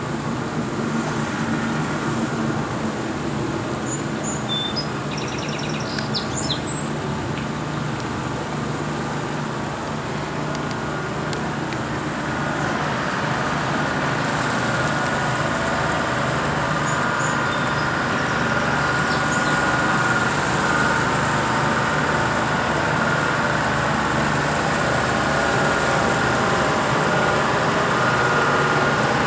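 Heavy truck engine running steadily as a GMC tow truck drives through flood water; the engine grows louder from about halfway through as it approaches.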